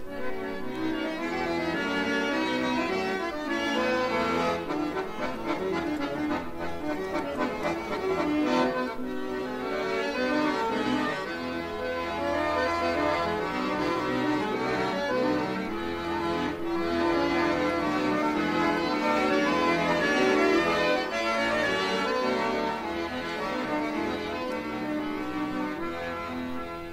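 Solo concert accordion playing a lively, jig-like piece: many quick reed notes over held bass notes.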